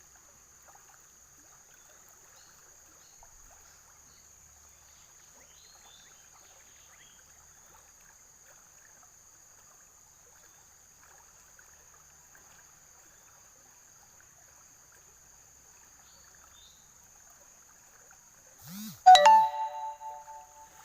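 Faint steady hiss with a thin high whine, then near the end a loud ringing chime, several pitches sounding together and dying away over about a second and a half.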